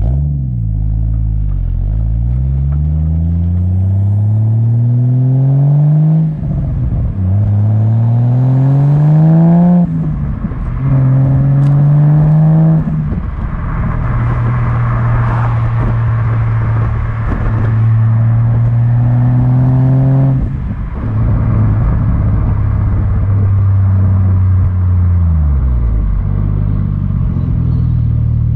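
Ford FG X Falcon XR6 Turbo's turbocharged 4.0-litre straight-six through a 4-inch dump pipe and 3.5-inch cat-back exhaust, middle muffler still fitted, heard from the rear of the car. The engine note rises and drops back three times as the car accelerates up through the gears, then holds steady at cruise, easing off briefly about two-thirds of the way in and again near the end.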